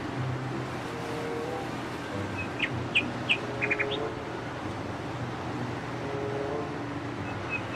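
Steady engine hum of a Cat 6015B hydraulic mining excavator at work, with a few short bird chirps between about two and a half and four seconds in.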